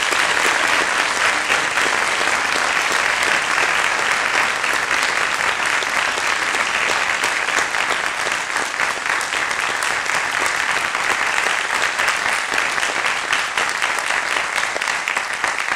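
An audience applauding steadily, a dense sustained clapping that fades out just after the end.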